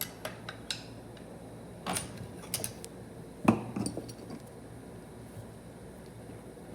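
Metal transmission parts and hand tools clinking and knocking as a TH400 valve body is taken apart by hand. There are light clicks through the first few seconds and one sharper knock about three and a half seconds in, then it goes quiet.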